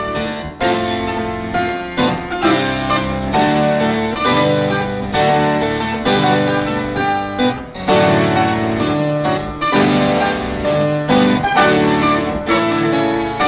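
Harpsichord music in an early-music style, many quick plucked notes played over a steady accompaniment.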